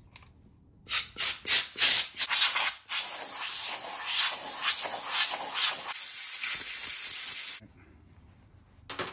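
Pressurized spray hissing into the oil port passage of a transfer case plate: about five short spurts, then one long steady blast that cuts off abruptly.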